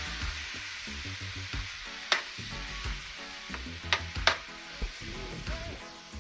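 Seasoned chicken pieces sizzling as they brown in a frying pan, with metal tongs clinking sharply against the pan three times as the pieces are turned.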